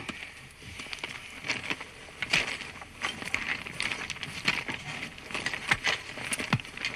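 Footsteps and rustling on a forest floor: an irregular scatter of light crackles and clicks.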